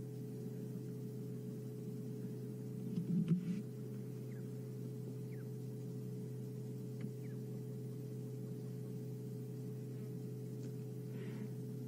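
Idling vehicle engine giving a steady low hum, with a brief louder low rumble about three seconds in.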